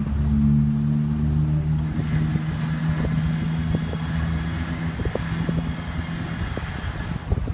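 Pickup truck's engine running steadily while it slowly moves a shed on a trailer. A higher whine joins from about two seconds in and stops near the end, with scattered light knocks and clicks.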